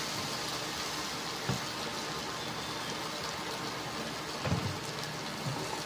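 Glutinous rice sizzling in hot oil with garlic, ginger and onion in a stainless steel pot: a steady frying hiss, with a soft knock about a second and a half in.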